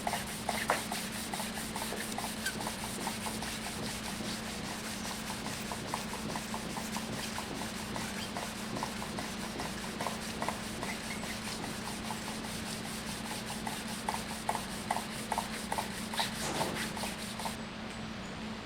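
Fine-grit sandpaper rubbing over the finish of a wooden stave drum shell in rapid, regular back-and-forth strokes during wet sanding, with a steady low hum underneath.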